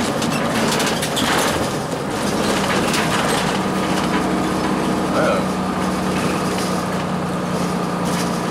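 Inside a 2002 Blue Bird CS transit bus: its Cummins ISC inline-six diesel running steadily, with cabin rattles over a constant noise bed. A steady engine hum settles in about two and a half seconds in.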